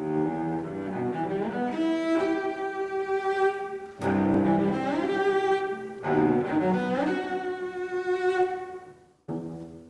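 High-school string orchestra of violins, violas and cellos playing a slow passage of long, sustained bowed chords, with new chords entering about four and six seconds in. The music fades near the end, cuts off abruptly, then a short snippet of strings follows.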